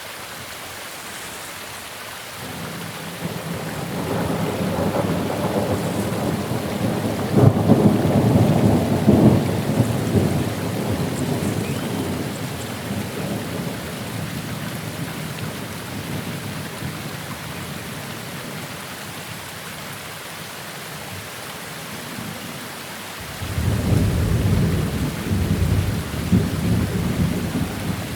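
Steady rain with two rolls of thunder. The first builds from about two seconds in, peaks with sharper cracks around seven to ten seconds and slowly dies away. The second breaks in suddenly about twenty-three seconds in and is still rumbling at the end.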